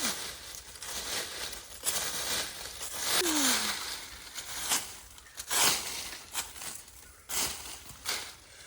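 Leaves and plant stems being handled and pulled, crackling and rustling in irregular bursts, with a short falling tone about three seconds in.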